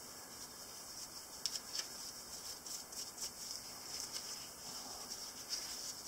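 Fine steel wool with WD-40 scrubbing the metal bolsters of an old Ka-Bar slip-joint pocket knife to lift surface rust: faint, irregular scratching and rubbing.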